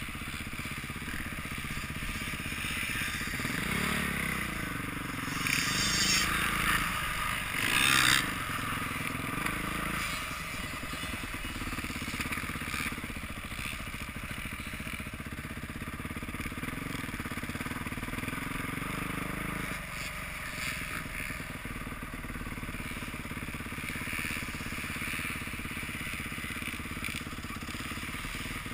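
Dirt bike engine running at low speed as the bike rolls along, the revs rising and falling in the first several seconds, with a brief louder rush about eight seconds in, then settling to a steady low putter.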